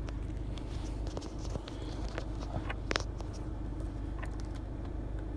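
Hand wire strippers clicking and snapping as the insulation is stripped off the end of a small-gauge wire, with one sharper click about three seconds in, over a steady low hum.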